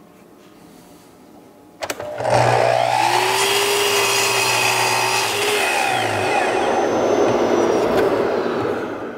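Sliding miter saw (chop saw) crosscutting a board: a click about two seconds in, then the motor runs up to speed and the blade cuts through the wood for several seconds before the saw winds down near the end.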